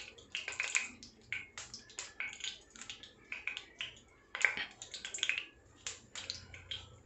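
Cooking oil heating in a large nonstick pot on a gas stove, crackling with small irregular pops, with one louder pop about four and a half seconds in.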